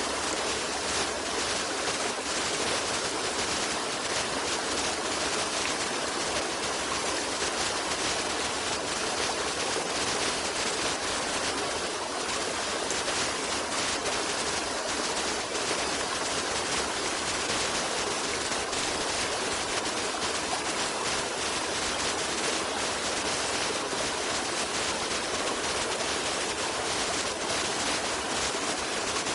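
Running water of a stream, a steady, even rushing with no breaks or changes.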